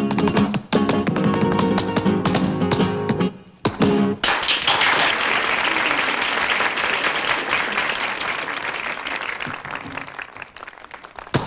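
Flamenco guitar with a dancer's sharp heel-and-toe footwork on a hard floor, ending about four seconds in. Applause follows and slowly fades away.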